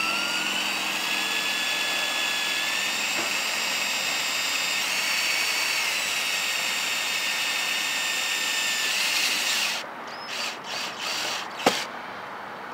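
Cordless drill driving self-tapping screws into a railing bracket: the motor whines steadily at speed after a short rise in pitch, then stops about ten seconds in. A few brief quieter pulses and a sharp click follow.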